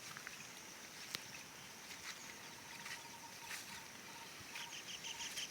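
Faint outdoor field ambience: a steady high hiss, and from about four seconds in a run of quick, evenly repeated chirps from a small animal.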